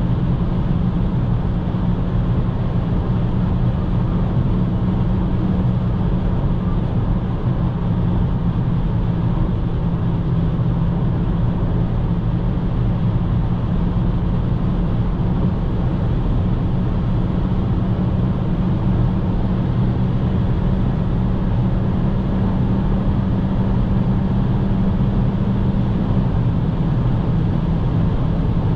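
Cabin noise of a Cupra Formentor 1.5 TSI cruising at motorway speed: a steady low drone from the turbocharged four-cylinder petrol engine under tyre and wind noise. The engine note drops slightly near the end.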